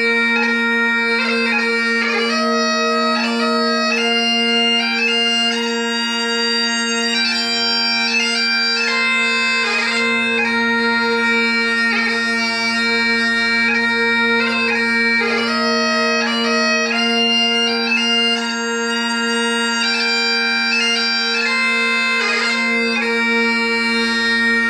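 Bagpipe music: a melody with quick grace notes played over steady, unbroken drones.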